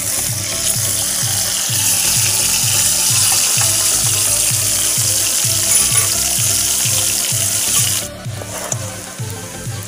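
Diced potatoes tipped into hot oil in a metal wok, sizzling loudly as they go in; the loud sizzle cuts off suddenly about eight seconds in, leaving a quieter frying sizzle. Background music with a steady beat runs underneath.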